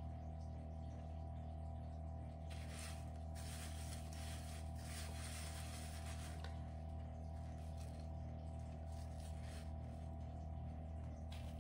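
Soft, scratchy rustling of sesame seeds, dried onion and garlic flakes and coarse salt as an egg-washed bagel is pressed and turned in them on a plate, mostly a few seconds in. A steady low hum runs underneath.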